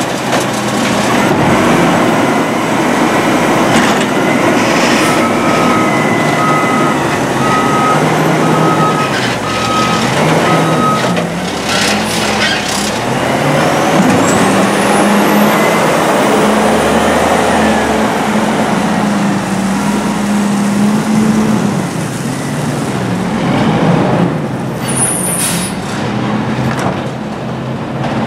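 Side-loader garbage truck working and pulling away: its engine runs and revs, with a series of evenly spaced beeps for several seconds about a fifth of the way in and a few sharp hisses of air brakes near the middle and near the end.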